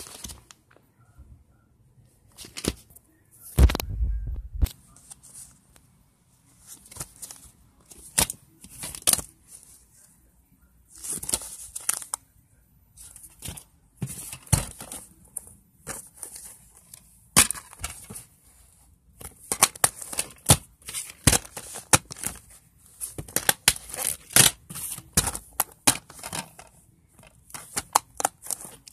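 Plastic DVD cases being handled and moved about on carpet: irregular rustling, clicks and knocks, with a heavier thump of the camera being bumped about four seconds in.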